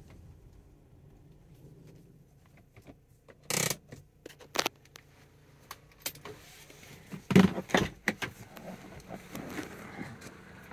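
A faint low hum, then a scatter of sharp clicks, knocks and rattles, with the loudest cluster a little past the middle.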